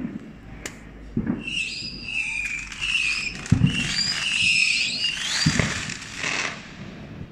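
Fireworks going off: several high whistling screams overlap and waver for about five seconds, with a few dull low thuds between them.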